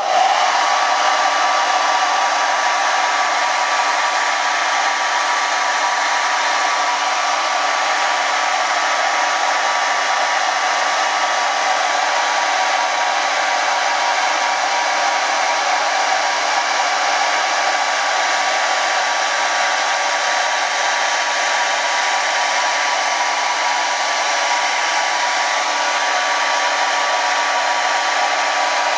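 Handheld hair dryer switched on and running steadily, a loud even rush of air with a faint steady whine, blowing hot air onto the ends of wax crayons to melt them.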